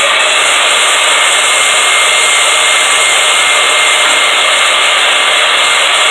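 Bauer bandsaw cutting through quarter-inch-thick flat bar: a loud, steady grinding hiss with a faint thin whine, unbroken throughout.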